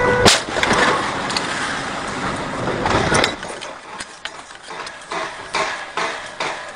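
A car horn sounds and is cut off at once by a loud collision impact. Engine and road noise follow and fade, with scattered knocks and rattles and several short louder sounds near the end.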